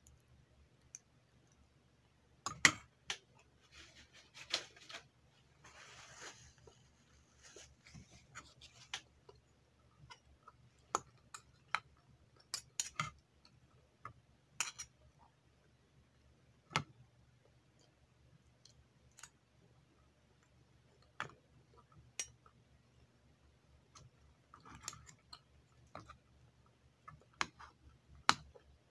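Metal fork and spoon clicking and scraping against a bowl in irregular sharp taps, with soft chewing in between.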